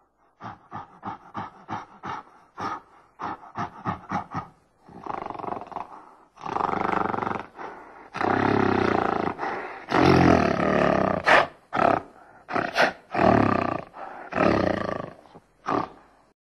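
Gorilla sound effect: a quick run of short grunting calls, about three or four a second, then several long, loud roars that stop just before the logo card ends.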